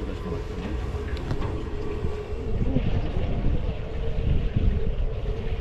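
Tour boat's inboard engine running steadily underway, a constant low rumble with a steady hum over it.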